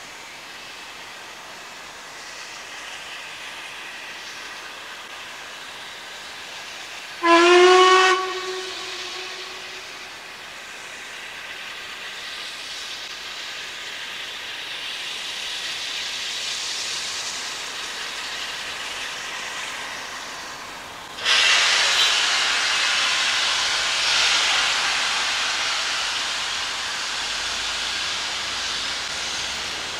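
A steam locomotive at some distance. It gives one short whistle blast, about a second long, near the quarter mark. Later a loud hiss of escaping steam comes in suddenly and keeps on, slowly easing.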